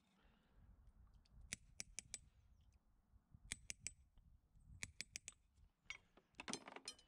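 Light, sharp taps of a farrier's hammer on the nails of a freshly shod horse's hoof, in three quick groups of three or four. Near the end comes a short scraping rattle of metal tools.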